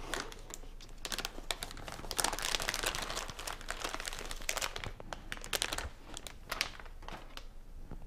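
Anti-static plastic bag crinkling as a motherboard is pulled out of it and handled: a dense, irregular run of crackles that thins out near the end.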